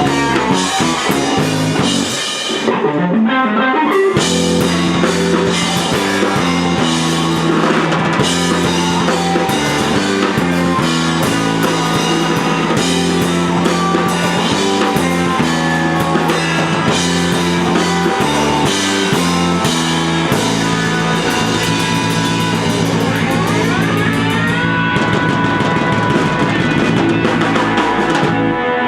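Live rock band playing: electric guitar over drum kit in a full, busy jam. The top end drops out briefly about three seconds in, and later a rising pitch glide leads into a thinner closing stretch.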